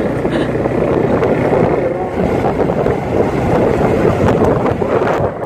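Wind rushing over the microphone on a moving motorcycle, over the bike running along a gravel road.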